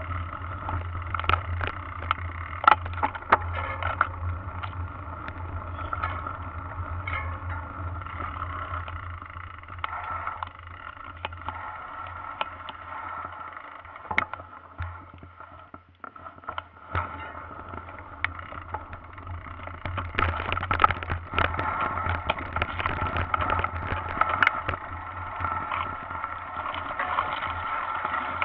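Mountain bike riding over a rough dirt trail, picked up by a camera mounted on the bike: a steady rumble with frequent sharp knocks and rattles from the bike jolting over the ground. It eases off briefly about halfway through, then grows busier again.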